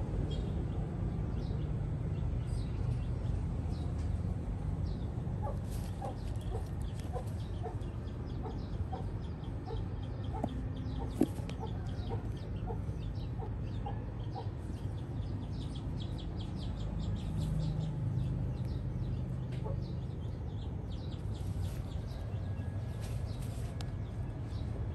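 Chickens clucking in short, repeated calls, busiest through the middle stretch, over a steady low outdoor rumble.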